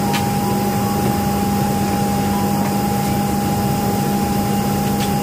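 Steady cabin noise inside a Boeing 737-900ER: rushing air with a low hum and a steady higher whine.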